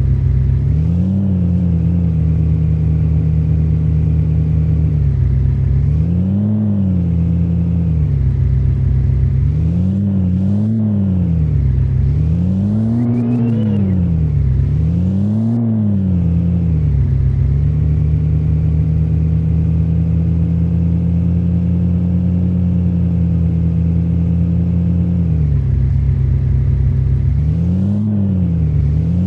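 Heavy vehicle engine running steadily, revving up and falling back several times in short swells, with longer stretches of even running in between.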